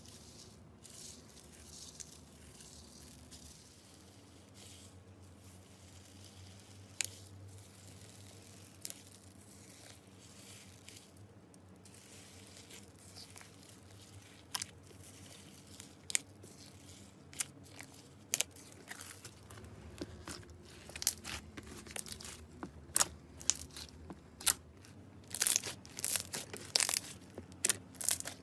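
Hands stirring dry foam beads in a glass bowl, a faint rustle with an occasional click, then kneading white slime packed with foam beads: crunchy crackling and popping that grows louder and much more frequent in the second half.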